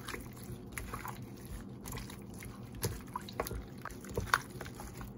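A gloved hand squeezing and tossing raw pork chop pieces in ginger-scallion water in a ceramic bowl: irregular wet squelches and small clicks, with one sharper click about four seconds in.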